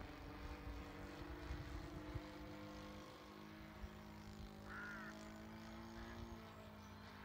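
Faint drone of a model plane's ASP 61 FS single-cylinder four-stroke engine, converted to run on petrol, turning a three-blade propeller in flight. The pitch dips slightly about three seconds in, and a brief high chirp sounds about five seconds in.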